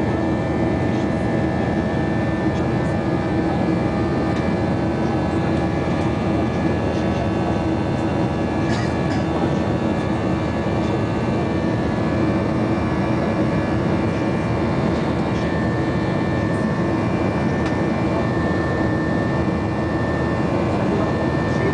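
Passenger-jet cabin noise during the climb after takeoff: the wing-mounted jet engines running at climb power, a steady rushing noise with a low hum and a high whine held steady throughout.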